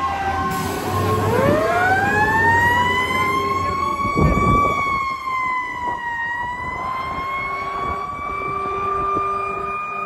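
Siren of a 2006 Seagrave fire engine sounding as the engine responds to an alarm call. It rises steadily in pitch over a few seconds, dips briefly, then holds a steady high wail.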